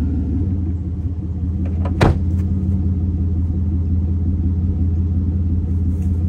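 Dodge Dakota pickup's engine idling steadily, with a single sharp knock about two seconds in, fitting the truck's door being shut.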